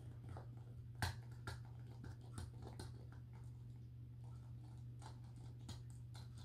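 Morkie puppy chewing and gnawing on a plastic Happy Meal toy: irregular clicks and crunches of teeth on plastic, the sharpest about a second in, over a steady low hum.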